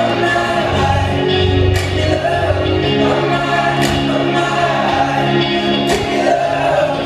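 A slow song with held, choir-like singing, played loud over a party sound system, with a cymbal-like crash about every two seconds.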